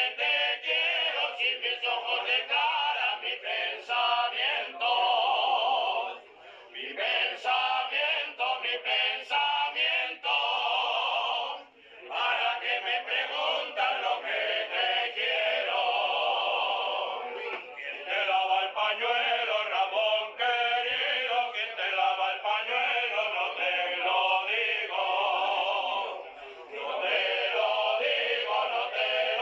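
Background music: a song sung by male voices, choir-like, with a thin sound that has no bass.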